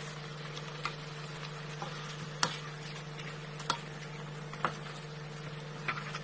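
Sambal sizzling in a nonstick wok, a steady hiss with a low hum under it, while a spatula knocks sharply against the pan about five times as fried mackerel are turned in the sauce; the loudest knock comes about two and a half seconds in.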